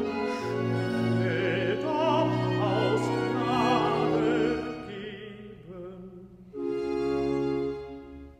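A tenor singing with vibrato in a Baroque church-cantata recitative, accompanied by held string chords. The voice fades out a little past halfway, and a loud sustained chord comes in about two-thirds of the way through, breaking off briefly near the end.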